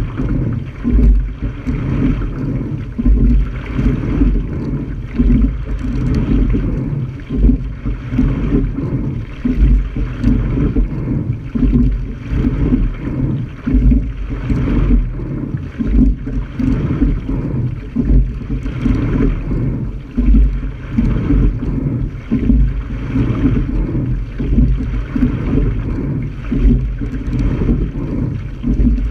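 Wind buffeting the microphone of a camera mounted on a single scull's bow, over water rushing along the hull. The water hiss swells and fades every two to three seconds, in time with the rowing strokes.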